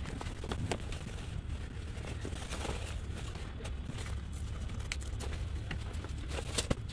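A steady low outdoor rumble with faint scattered rustles and clicks as a fabric bib is pulled on and adjusted.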